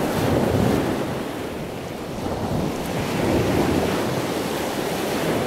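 Surf breaking and washing up a sandy beach, rising and falling twice as waves come in, with wind rumbling on the microphone.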